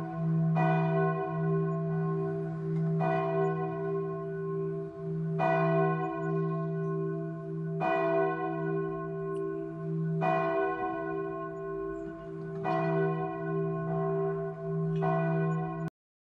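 A church bell tolling slowly, seven strokes about two and a half seconds apart, its low hum ringing on between strokes. It cuts off abruptly near the end.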